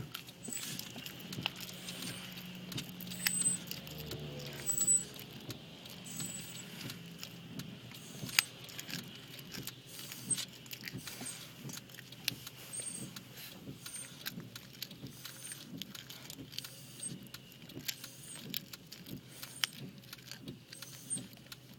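Quiet car-cabin noise with the engine idling low, and light metallic jingling and scattered small clicks.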